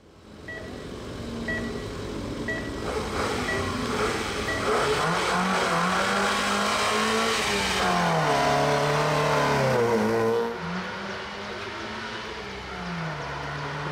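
Škoda Fabia hill-climb race car of the up-to-1400 cc class revving at the start line while a start timer beeps five times, a second apart, then launching and pulling away, its engine note climbing and dropping at each upshift. The engine is quieter near the end as the car moves away.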